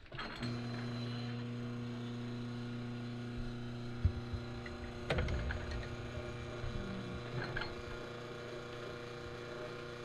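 La Marzocco Leva lever espresso machine pulling a shot: a steady machine hum starts about half a second in, with a sharp knock about four seconds in and a clunk about five seconds in, after which the hum goes on more quietly.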